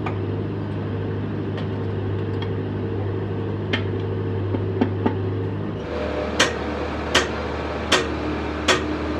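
Metal lathe running with a steady hum and a few scattered sharp clicks. About six seconds in its note changes, and from then on sharp clicks come regularly, about one every three-quarters of a second.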